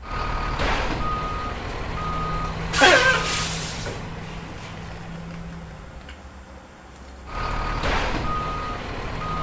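Truck reversing alarm beeping about once a second over a running engine, with a loud burst of hiss about three seconds in. After a lull the engine and beeps start again about seven seconds in.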